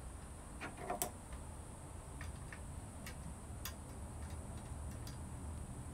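Pliers and a thin metal strip on a chainsaw ticking and clicking as the strip is squeezed and bent round by hand: a handful of light, irregular ticks, the loudest about a second in, over a low steady hum.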